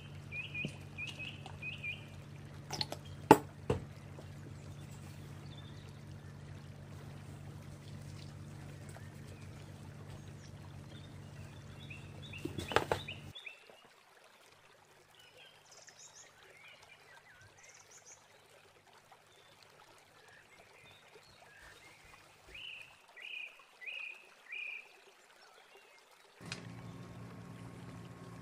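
Foamy hot water with a greasy range-hood mesh filter soaking in it, trickling and fizzing over a steady low hum. Short runs of bird chirps come near the start and again a few seconds before the end. A few sharp knocks sound around three and thirteen seconds in. The hum drops out about halfway through and returns near the end.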